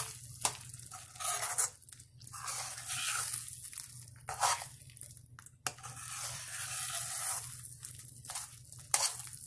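A metal spoon stirring thick, sticky pineapple halwa in a non-stick pan, in irregular scraping strokes over a light sizzle of ghee. A few sharp clicks come from the spoon striking the pan.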